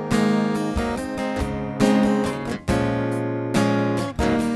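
Acoustic guitar strummed in chords. A strong strum comes about once a second, with lighter strokes between, and each chord is left ringing.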